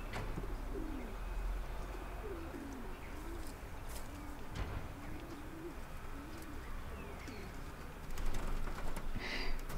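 A string of soft, short, wavering low cooing calls, roughly one a second, that stop after about seven seconds.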